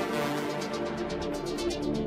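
Background music with sustained chords and a quick, steady beat in the highs.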